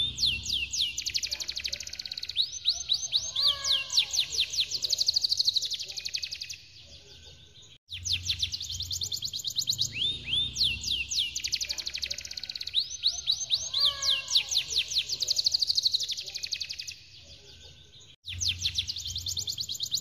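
Domestic canary singing long rolling trills of rapid, high, falling whistled notes, with a lower warbled passage mixed in. The song breaks off briefly about six and a half seconds in and again near the end, and the same phrase comes round identically after the first break.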